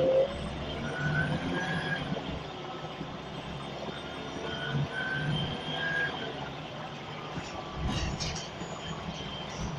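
Scania L94UB single-deck bus heard from inside the saloon, its engine running with a steady low rumble. Short high-pitched whining tones come and go several times over the first six seconds, and a few sharp knocks and rattles sound near the end.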